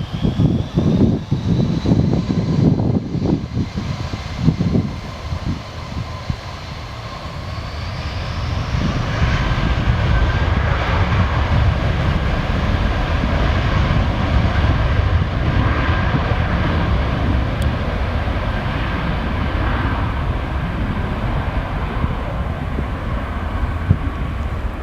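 Airliner engines: a high whine rises over the first few seconds while wind buffets the microphone, then a steady, louder engine noise builds from about eight seconds in and holds.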